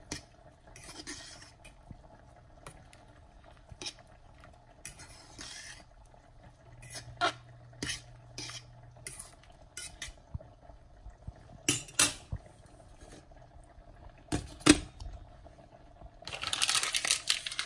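A metal spoon clinking and scraping against a stainless steel saucepan while stirring a wet quinoa, brown rice and vegetable mix, with scattered knocks on the pan rim, two of them sharper about twelve and fifteen seconds in. Near the end comes a short noisy rattle.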